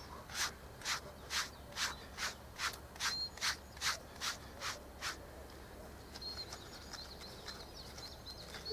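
A wire slicker brush is drawn in quick, regular strokes through a German shepherd's thick coat, about two strokes a second. The strokes stop about five seconds in.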